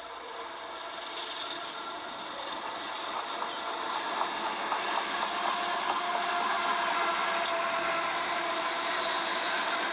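Union Pacific freight train's lead diesel locomotives approaching out of a tunnel: engine and rail noise growing steadily louder as the train draws near.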